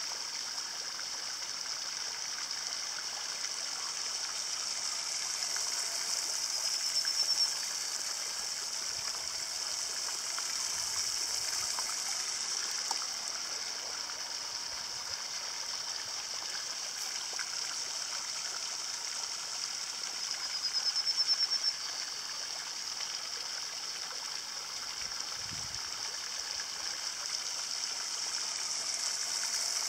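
Electric motor and propeller of a 1/24-scale radio-controlled model fast boat running at speed on the water: a steady high whine with a hiss of spray. The sound swells briefly about a quarter of the way in, again about two thirds in, and rises once more at the end.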